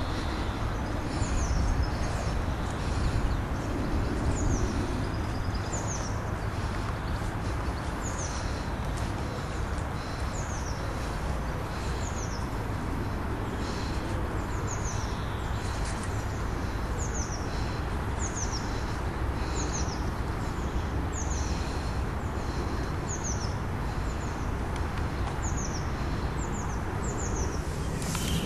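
Steady low rumble of distant road traffic, with a small bird repeating a short, high call that falls in pitch, every second or so.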